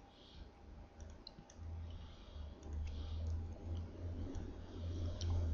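Scattered computer mouse clicks and a few keystrokes, over a low rumble.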